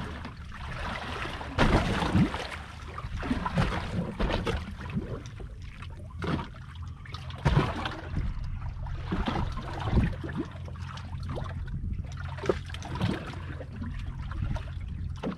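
Water lapping and sloshing against the hull of a boat sitting on the water, in irregular small splashes over a steady low hum.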